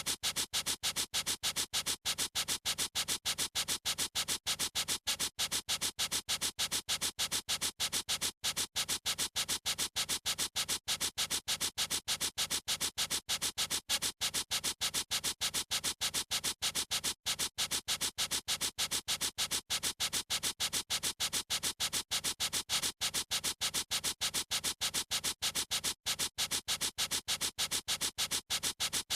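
Marker pen scribbling back and forth on a surface: an unbroken run of short, scratchy strokes, several a second, with no pauses.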